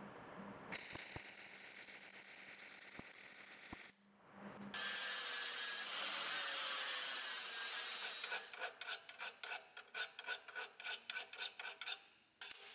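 MIG welding arc crackling and hissing along a steel seam for about three seconds. An angle grinder follows, grinding the fresh weld bead steadily, then in quick short strokes, about three or four a second, near the end.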